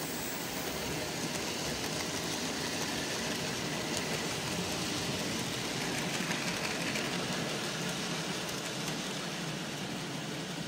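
OO gauge model goods train running past, its wagon wheels rolling steadily over the track with faint ticks.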